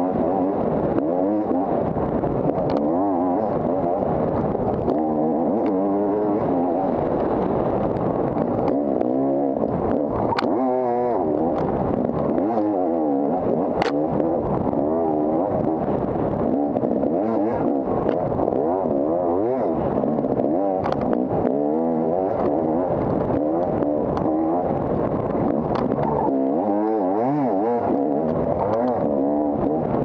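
250-class dirt bike engine ridden hard off-road, its revs swinging up and down constantly with the throttle. A few sharp clicks and knocks cut through.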